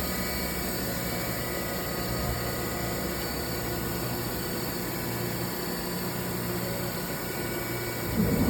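Steady low hum with faint high whining tones from the 2008 Sharp SV-2412 vertical machining center's spindle running, so quiet it can hardly be heard. Near the end an air compressor starts up, and its loud low drone quickly drowns it out.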